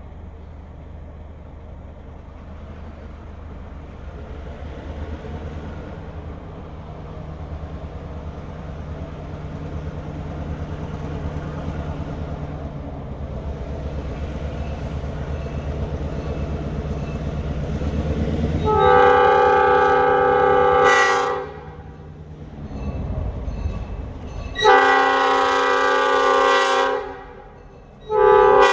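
EMD GP38 diesel locomotive approaching, its engine rumble growing steadily louder. In the last ten seconds its air horn sounds two long blasts and then a short one, as a crossing salute.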